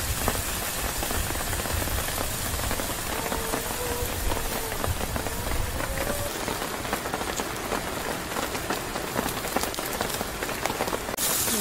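Steady rain pattering on the tent canopy, mixed with a steak sizzling in a frying pan on a portable gas stove.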